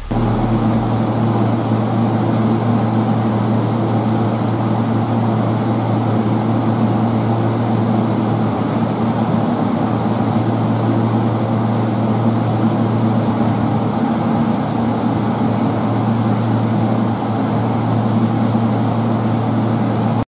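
A steady low mechanical hum with a droning pitch, unchanged throughout.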